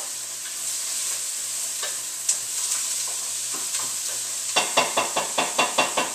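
Food sizzling steadily in a pan on the stove while it is stirred, with a quick run of about nine utensil knocks against the pan near the end.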